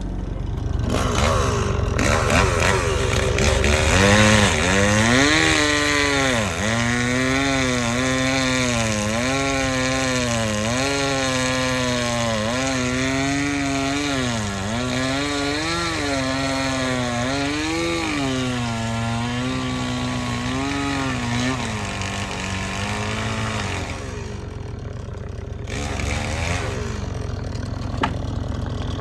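Stihl chainsaw cutting through a pine log, its engine pitch dipping and recovering again and again as the chain loads up in the cut, then stopping about 24 seconds in. The mini excavator's engine keeps running underneath.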